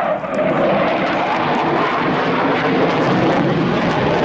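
Jet noise from a Panavia Tornado's two Rolls-Royce RB199 turbofan engines as the jet banks through its display and flies away. It is a steady, loud noise that deepens slightly toward the end.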